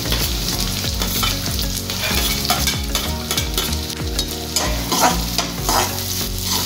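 Chopped onions frying and sizzling in hot oil in a metal kadai, with a slotted metal spatula stirring and scraping them against the pan in repeated strokes.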